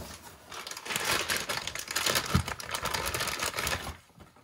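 Clear plastic bag crinkling and rustling in gloved hands as a new piston is unwrapped from it, an irregular run of crackles that dies away near the end.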